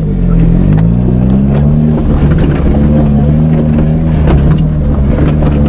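Eagle Talon's four-cylinder engine running under way, heard from inside the cabin. Its pitch dips briefly at the start, climbs over the next second or so and then holds steady, with scattered clicks and rattles.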